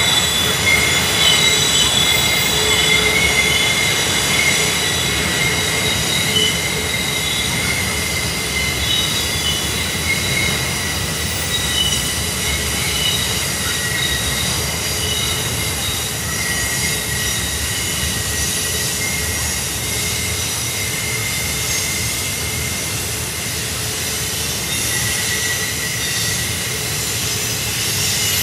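Double-stack intermodal freight train of well cars rolling through a sharp curve, its wheel flanges squealing in several steady high tones over the low rumble of the cars. The squeal eases slightly in the second half.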